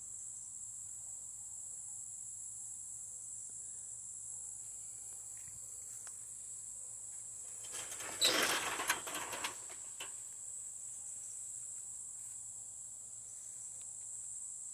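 A steady, high-pitched chorus of insects such as crickets in summer vegetation. About eight seconds in, a brief loud rustle breaks in for a second or so.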